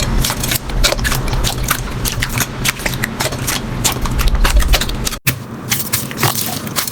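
Slime being squeezed and worked by hand: a dense run of sticky clicks and pops. A brief drop-out about five seconds in, after which the clicking goes on, lighter.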